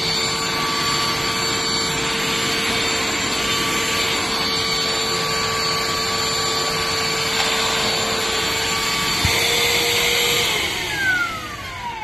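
Shark CH701 Cyclone Pet cordless handheld vacuum running steadily: a motor whine of several steady tones over the rush of suction. A click comes about nine seconds in. Near the end it is switched off and the whine falls away as the motor spins down.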